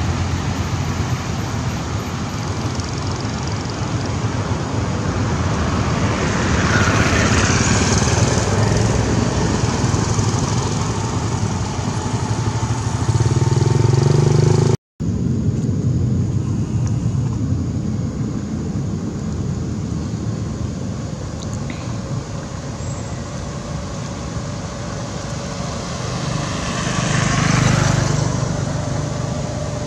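Steady road traffic noise with vehicles passing, swelling and fading about a quarter of the way in and again near the end. The sound drops out for a moment halfway through.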